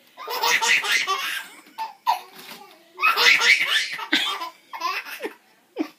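A baby belly-laughing in two long bouts, the first near the start and the second about three seconds in, set off by the keys and mechanism of an adding machine. Short clicks of the machine sound between the bouts.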